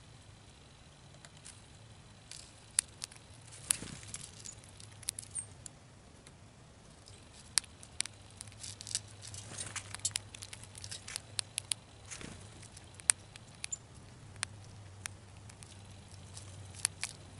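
Gray squirrel feeding on birdseed in a plastic tray: irregular sharp clicks and crackles as seeds are bitten, husked and shifted, busiest about halfway through. A faint steady low hum lies underneath.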